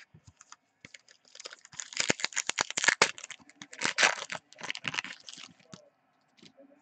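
Trading cards being handled and flipped through by hand: a run of rustling with many sharp clicks of card against card, loudest in the middle few seconds.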